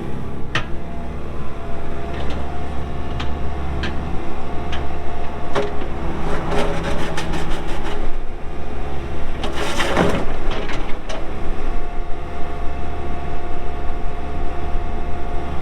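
2011 Case CX80 excavator's pre-emissions Isuzu diesel engine running steadily while the machine is operated, with scattered metal clanks, a busier stretch of rattling about six seconds in and a louder clatter about ten seconds in.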